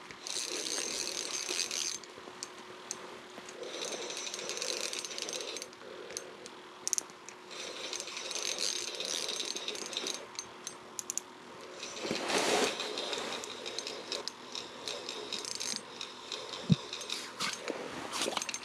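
Fishing reel being cranked in several bursts of about two seconds each, its gears and clicker ratcheting as a fish is reeled up through the ice hole. About twelve seconds in there is one brief, louder noise.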